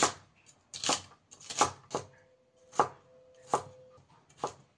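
Kitchen knife chopping vegetables on a cutting board: about eight separate, unevenly spaced strokes.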